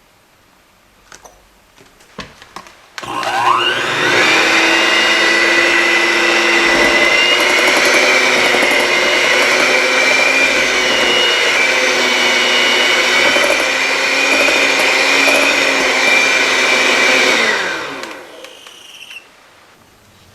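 A small electric kitchen appliance motor spins up about three seconds in, runs steadily at one speed for about fourteen seconds, then winds down. A few light clicks come before it starts.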